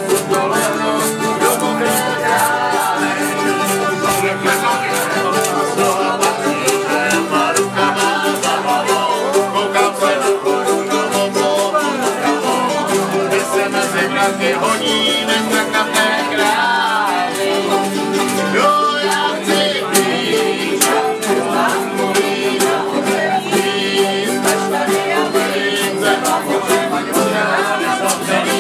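Lively acoustic string-band music in a bluegrass style, with plucked strings and a washboard scraped in a steady rhythm.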